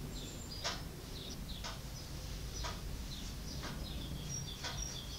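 Wall clock ticking steadily, one tick a second, with faint high bird chirps between the ticks.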